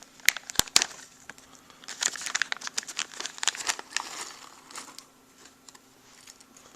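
Plastic parts package crinkling and crackling as it is handled and opened, busiest about two to four seconds in and then thinning to a few scattered crackles.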